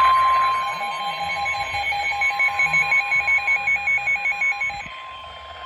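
Emergency alert warning tone for a severe thunderstorm warning: a steady high tone with a pulsing electronic beep over it, about two to three beeps a second, that stops about five seconds in while the steady tone continues.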